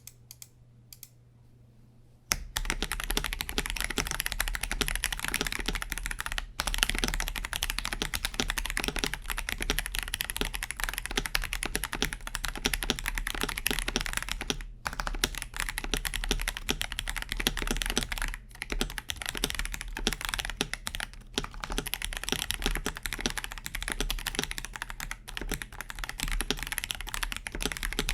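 Continuous typing on a KBD67 Lite R3 mechanical keyboard with stock Akko Sponge tactile switches, a clacky sound from their Kailh-style latch housing. After a few isolated key clicks, fast steady typing starts about two seconds in, with a few brief pauses.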